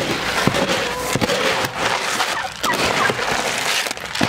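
Plastic scoop digging into a tote of feed pellets, the pellets rattling and pouring in a dense, continuous clatter.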